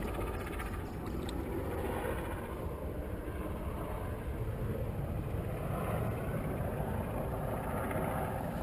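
Steady low rumbling wind noise on the action camera's microphone.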